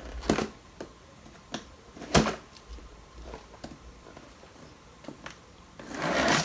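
A knife cutting into a cardboard shipping box, with scattered clicks and scrapes of the box being handled. There is a sharp knock about two seconds in and a longer scraping rasp near the end.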